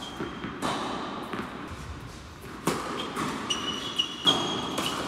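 Tennis balls being hit and bouncing on an indoor hard court: three sharp knocks, about a second in, near the middle and the loudest near the end, each echoing in the hall. A few short high squeaks come in the last second and a half.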